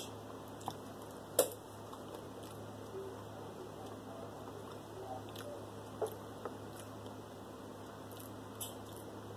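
Quiet eating sounds: soft chewing and mouth noises with a few sharp clicks of a plastic fork against a plastic takeout container, the loudest about a second and a half in. A steady low hum runs underneath.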